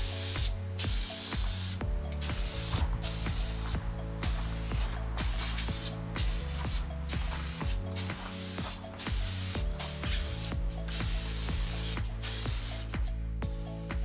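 Aerosol spray can of black crystal-finish (wrinkle) paint hissing in a string of short bursts with brief stops between, laying a coat on a motorcycle's alternator cover.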